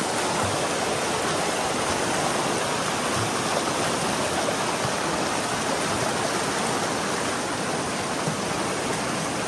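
Swift, swollen stream rushing over rocks through whitewater rapids: a steady, unbroken rush of water from a strong current.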